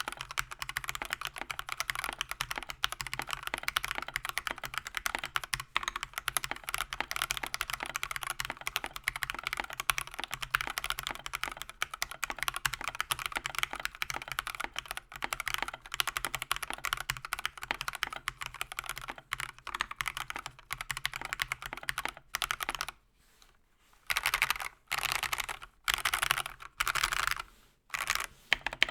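Akko 3098B mechanical keyboard being typed on fast and steadily. About 22 s in, the typing breaks into a few short bursts of keystrokes with pauses between them.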